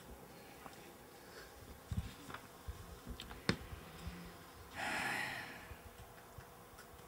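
Pages of a book being leafed through: scattered soft taps and clicks, one sharp tick about three and a half seconds in, and a short rustle about a second later.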